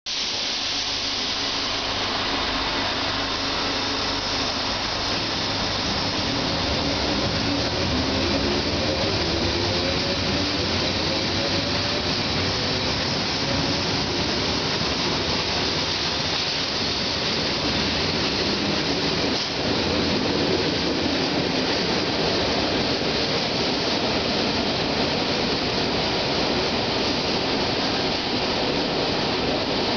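BG:Voz electric commuter train pulling out of an underground station: a steady loud rumble and hiss, with a whine that rises in pitch as the train gathers speed during the first half.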